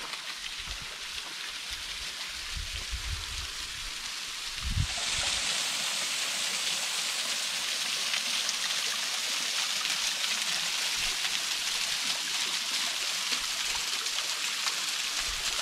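Thin waterfall trickling down a rock face and splashing at its foot: a steady hiss of falling water that grows louder and brighter about five seconds in. A few low bumps in the first few seconds.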